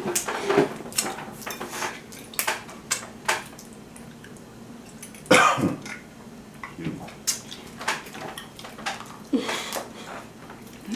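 Scattered clicks and clatter of seafood being eaten at a table: crab and crawfish shells and utensils handled, with one louder, longer noise about five seconds in.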